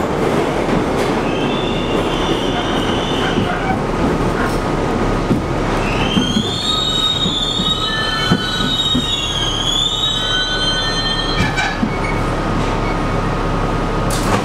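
Inside a New York City Subway R62A car on the 1 train: steady rumble of wheels on track, with high, wavering wheel squeals a couple of seconds in and again for several seconds in the middle as the train slows into a station, and a few clanks near the end as it comes to a stop.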